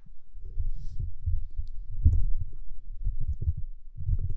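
Wind buffeting a phone microphone on an open training pitch: an irregular low rumble with uneven thumps.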